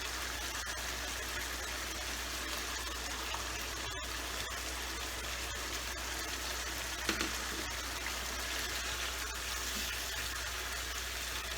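Chicken bubbling and sizzling in a pan in its own released juices, a steady hiss as the water cooks off toward a dry sukha. A brief clatter about seven seconds in.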